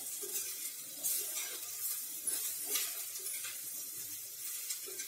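Faint sizzle from besan-coated okra fry in a hot stainless steel pan with the flame just turned off, with a few light scrapes of a metal spatula.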